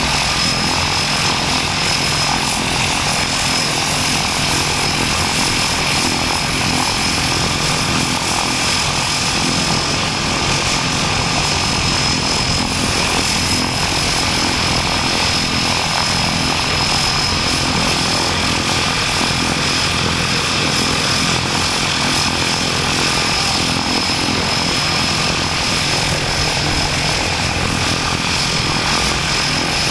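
Twin turboprop engines of a de Havilland Canada DHC-6 Twin Otter running as it taxis close by: a steady propeller drone with a constant high turbine whine.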